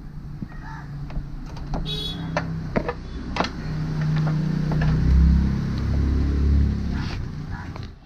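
Clicks and taps of a motorcycle clutch cable and its metal end being handled and threaded at the handlebar lever, with a low rumble that swells in the middle and fades near the end.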